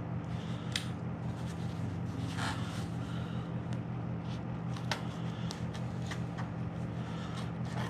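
Packaging and bubble wrap rustling and crinkling in short, irregular bursts of handling as a part is unwrapped, over a steady low hum.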